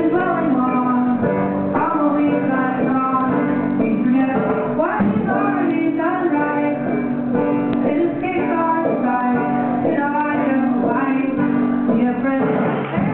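Live indie pop band music: a high singing voice over held low notes from the accompanying instruments.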